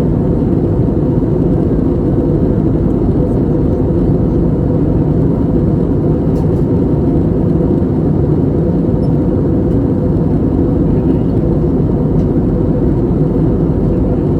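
Steady cabin rumble of an Airbus A320neo with Pratt & Whitney PW1100G geared turbofans, heard from inside the passenger cabin as engine and airflow noise. It holds an even level, with no change in pitch or loudness.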